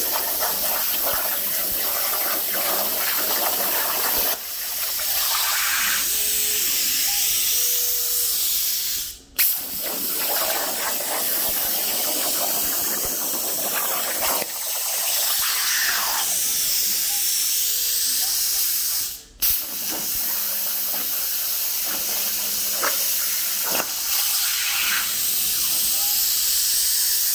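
CNC plasma torch cutting 3/16-inch steel plate: a loud, steady hiss of the arc and air jet that cuts off for a moment twice, about ten seconds apart.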